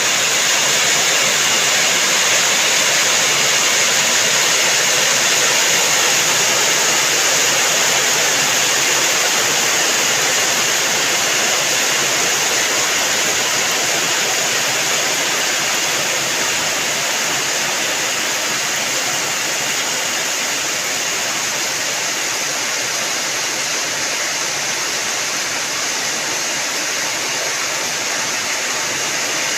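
Steady, unbroken hiss of falling rain water, an even rush with no separate drops or pauses.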